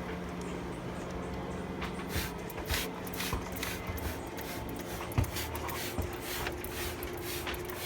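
Scrubbing and rubbing strokes from cleaning a car's engine bay with soapy water, with scattered small knocks and one sharper knock about five seconds in, over a steady low hum.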